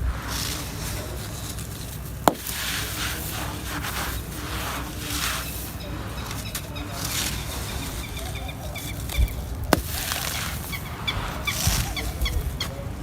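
Grey concrete being crumbled by hand: repeated gritty crunching and crackling, with a sharp snap about two seconds in and another near ten seconds. Short repeated bird chirps join in over the last couple of seconds.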